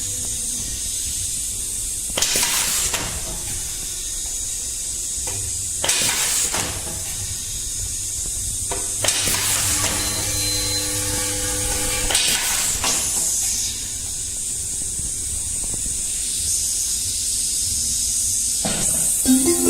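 Pneumatic blind rivet gun setting rivets, each one a short sharp burst of air exhaust, about five in all a few seconds apart, over a steady hiss of compressed air and a low machine hum.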